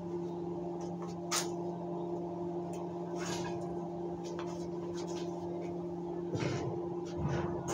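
Steel barbecue grill grate being lifted off a metal workbench: a few light clicks and knocks, then two duller thuds near the end, over a steady low hum.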